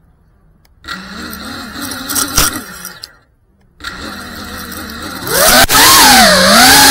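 Drone's electric motors and propellers heard from its own on-board camera: a wavering whine starts about a second in, cuts out briefly, resumes, then throttles up sharply and much louder about five seconds in as the drone lifts off.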